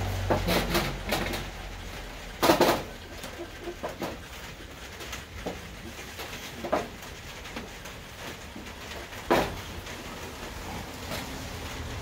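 Handling of a fire pit's canvas storage bag and its contents: rustling and scattered sharp knocks. The loudest knock comes about two and a half seconds in and another about nine seconds in.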